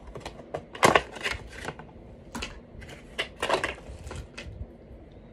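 Hands handling a plastic Tangle fidget toy and its packaging: a string of irregular clicks and crinkles, the loudest about a second in.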